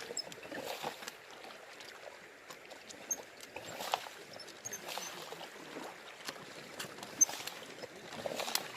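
Water splashing and sloshing in the shallows, irregular swells roughly once a second.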